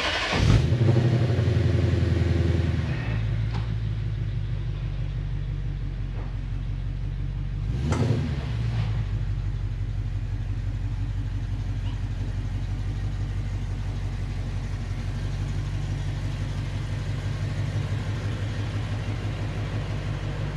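Lexus IS F's 5.0-litre 2UR-GSE V8 starting up just after its oil change. It catches suddenly and runs louder and higher for about three seconds, then settles into a steady idle, with a brief swell about eight seconds in as the car moves off.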